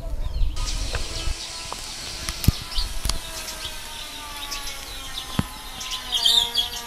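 Small birds chirping and calling, with a louder burst of calls near the end. Under them are a few sharp clicks from handling and peeling a mango with a knife, over faint steady held tones.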